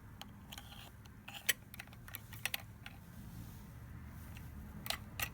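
Scattered small mechanical clicks from an indicator lock's push button and mechanism being worked by hand, coming faster near the end.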